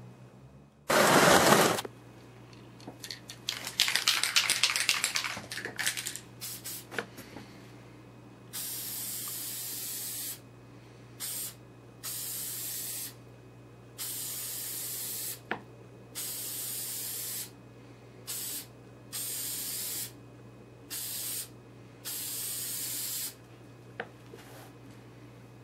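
Aerosol can of toner lacquer: one loud burst of spray about a second in, then a few seconds of rattling like the can being shaken, then about nine separate spray bursts of half a second to two seconds each, stopping and starting as one light coat goes on.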